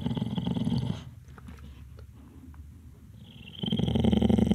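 Small dog snoring in its sleep: a low, rattling snore that stops about a second in and, after a pause of about two and a half seconds, starts again near the end.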